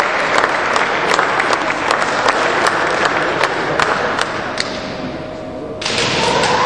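Spectators applauding, with many sharp separate claps, dying down about five seconds in. Near the end a sudden loud drawn-out shout, a kendo fighter's kiai, as the two close in and clash.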